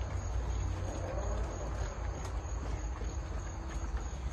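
Puppies eating kibble from a metal bowl: scattered crunches and clicks against the bowl, over a steady low rumble and a thin, steady high-pitched tone.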